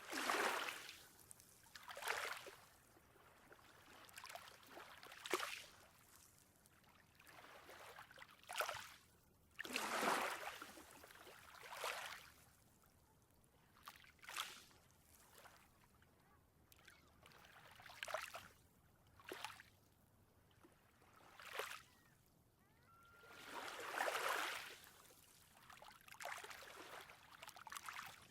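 Small ocean waves lapping and washing in, a swell of water noise every one to three seconds with quieter stretches between.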